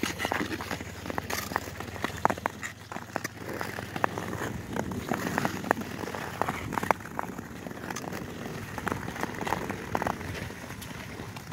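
Ice skate blades scraping and clicking on rough frozen-lake ice, with many scattered sharp clicks and crunches over a low steady hiss.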